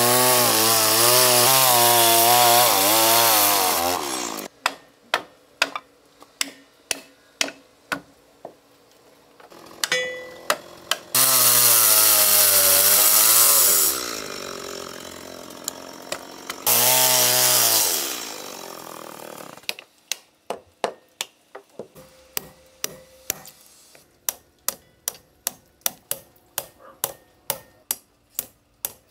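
Chainsaw cutting into a wooden boat keel in three bursts, its pitch wavering under load. In between, a hammer strikes a chisel paring the wood: a slow run of knocks, then a faster run near the end.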